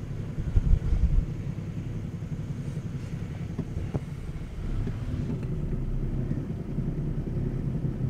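Ford Falcon BF Mk II ute's engine running, heard from inside the cabin, with a continual low thuddy, shaky knocking that can also be felt through the power steering.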